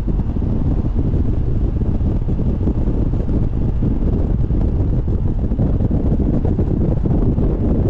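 Wind buffeting the microphone over the steady low rumble of a BMW Z4 roadster driving along.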